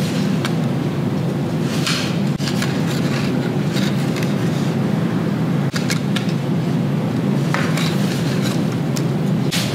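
A steady low rumble, with the rustle of canvas and leather straps being handled and a few small clicks from a metal strap buckle over it.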